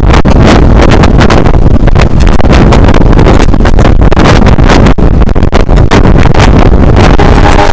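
Heavy wind buffeting on a microphone mounted outside the window of a moving passenger train, over the train's low running rumble; loud and close to clipping. A faint steady high tone joins near the end.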